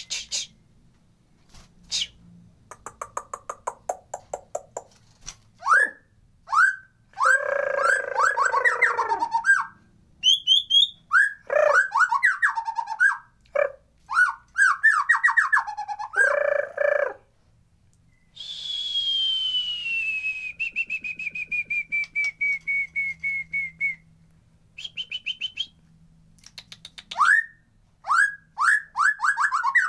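White-rumped shama (murai batu) singing: a run of loud, varied whistled phrases, rapid trills and chattering notes, broken by short pauses, with a long falling series of quick notes about two-thirds of the way through.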